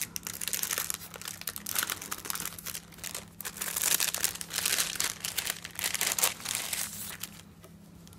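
Mail packaging crinkling and rustling as a padded envelope is worked open and a clear plastic sleeve is pulled out and handled, in irregular crackly bursts that stop about seven and a half seconds in.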